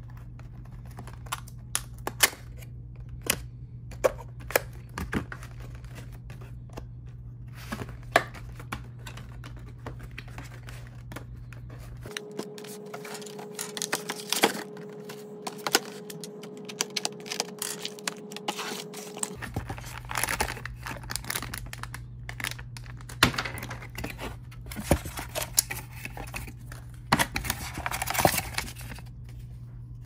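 Cardboard microphone packaging being handled and opened by hand: sharp taps and clicks of fingers on the box, with scraping, sliding and tearing of cardboard, tape and foam that grow busier in the second half. A low steady hum lies underneath and drops out for several seconds in the middle.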